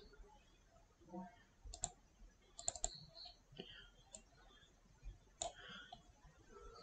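Faint computer mouse clicks: a few single clicks scattered through a few seconds, with a quick double-click about three seconds in.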